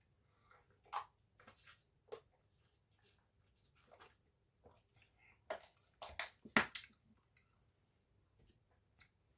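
Close-up mouth sounds of someone eating chips (fries): irregular wet smacks, clicks and chewing, with a cluster of louder smacks a little past the middle.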